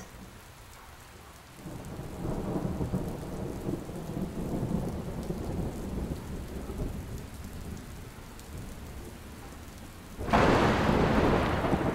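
Thunderstorm: a low rumble of thunder builds about two seconds in and rolls on, then a louder crash of thunder with rain breaks out sharply near the end.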